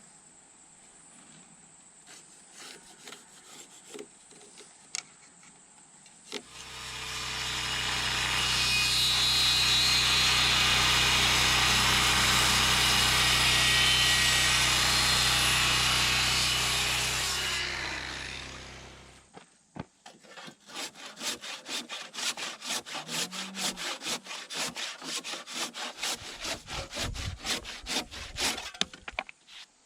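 A power saw runs steadily for about twelve seconds, cutting into wood, then winds down. Then comes a run of quick, even strokes of a handsaw cutting wood.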